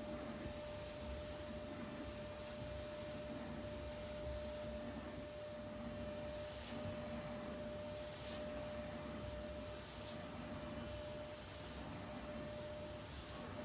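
Faint steady hum with a constant mid-pitched tone and a thin high tone over low rumble, with a few soft taps.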